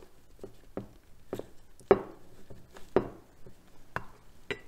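Irregular small clicks and taps of gloved hands working a rubber dust boot into the seal groove of a two-piston front brake caliper, with the boot and piston knocking lightly against the caliper body.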